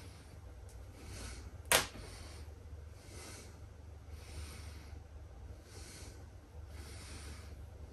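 Plush stuffed horse being pulled and torn apart by hand, fabric and stuffing rustling, with soft breathing-like swells about once a second and one sharp snap about two seconds in. A low steady hum runs underneath.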